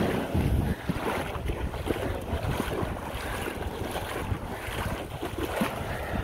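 Wind gusting across the microphone over the wash of waves on the beach, with a strong gust about half a second in.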